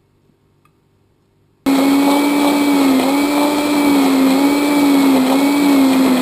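Hand-held immersion blender switched on suddenly about a second and a half in, then running steadily with a humming whir whose pitch wavers slightly as it froths green broth into an emulsion in a saucepan.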